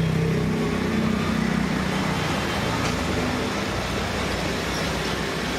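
Steady background noise of road traffic, with a low hum that fades out during the first second or so.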